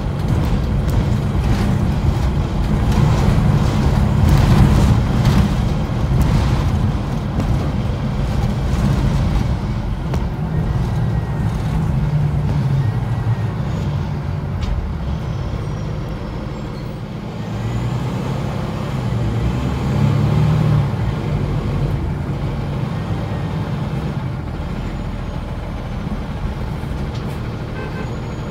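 Cummins ISL diesel driving a 2009 Nova Bus LFS through its ZF six-speed automatic, heard from inside the moving bus. A low drone swells and eases, with body rattles in the first several seconds.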